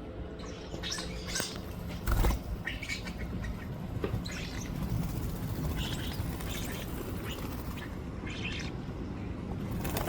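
A flock of feeding birds: short scattered chirps and tweets with wings flapping, and one louder low thump about two seconds in.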